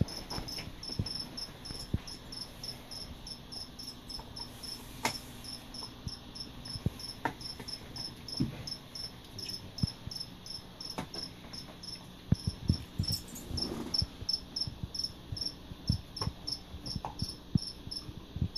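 Crickets chirping steadily, about three chirps a second, with scattered light knocks and taps.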